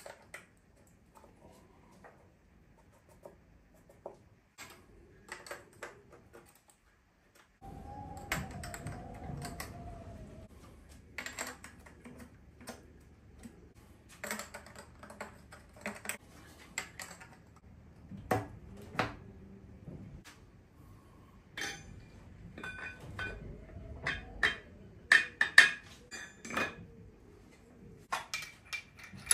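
Irregular light metallic clicks and clinks of steel valve buckets and shims being set into a BMW S38B36 cylinder head.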